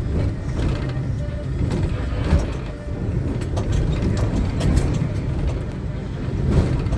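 Inside a moving combi passenger minibus: steady engine and road rumble with the body rattling and clicking, and a louder rushing clatter near the end.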